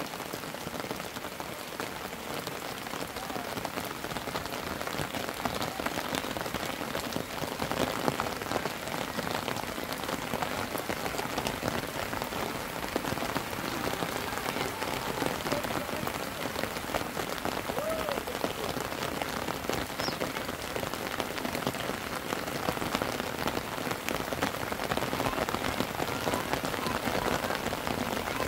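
Steady rain falling, a dense patter of drops with no let-up.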